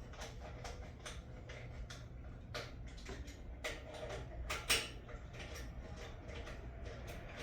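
Scattered small clicks and taps of tools and metal parts being handled on a lawnmower, with one louder knock about four and a half seconds in, over a low steady hum.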